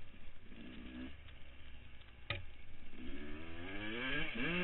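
Motocross bike engine from the rider's helmet cam, quieter off the throttle at first, with a sharp click about two seconds in; then the engine is opened up and revs hard, its pitch rising and falling near the end, over a steady rush of wind.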